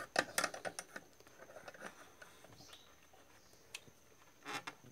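Light metal clicks and scrapes of a spanner working the nut over a mixer grinder motor's bottom bush as it is tightened, with the shaft held by a screwdriver. The clicks come a few at a time, with gaps of quiet in between.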